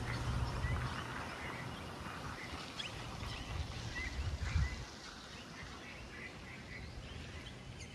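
Outdoor ambience: a few scattered short bird chirps over a low rumble that eases off about five seconds in.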